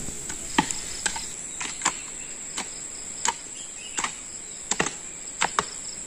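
Short-handled hand hoes chopping into soil, about ten sharp irregular strikes, over a steady high-pitched insect drone.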